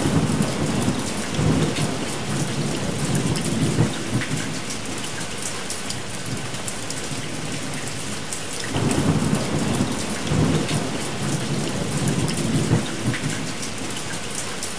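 Steady heavy rain with rolling thunder: a long rumble at the start and another about nine seconds in.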